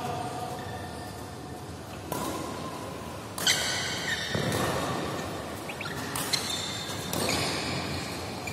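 Badminton rackets striking a shuttlecock in a doubles rally: several sharp hits a second or two apart, each echoing in a large hall, with players' feet moving on the court between shots.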